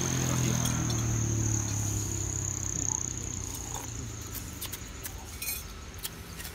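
A steady high-pitched insect trill over a low engine hum that fades away by about four seconds in. A few light clicks of a plastic spoon against the bowl come near the end.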